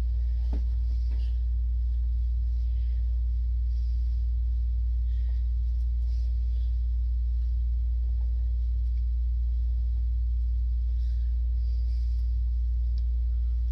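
A steady low hum, with faint taps and rustles of a cardboard shipping box being handled.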